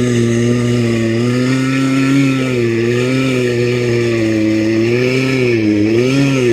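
Chainsaw running steadily while cutting a tree, its engine pitch wavering gently up and down and dipping a few times near the end.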